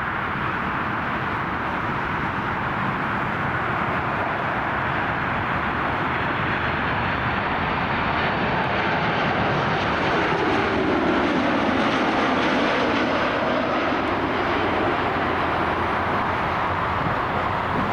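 Jet airliner engines passing, a steady roar that slowly swells and is loudest about two-thirds of the way through.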